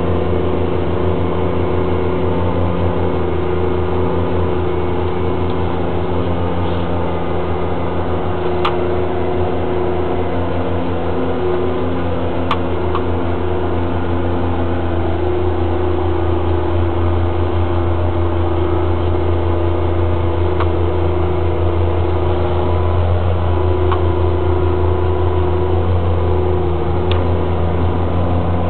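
Caterpillar Challenger MT765 tracked tractor's diesel engine running steadily under load while it pulls a Spalding flatlift, heard from inside the cab as a deep, even drone. A few sharp clicks sound over it.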